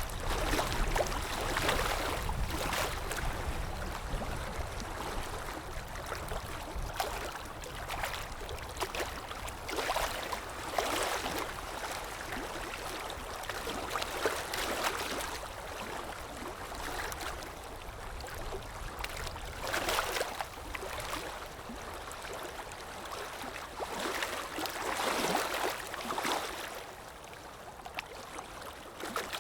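Moving water: a steady wash of splashing and flowing, swelling irregularly every few seconds.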